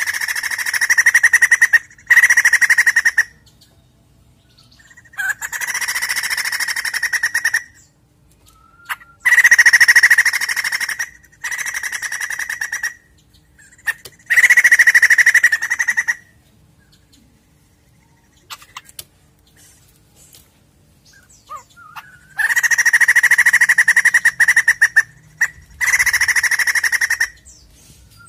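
White-crested laughingthrush calling in repeated loud bursts of fast chattering, each one to three seconds long, with short pauses between and one longer pause midway.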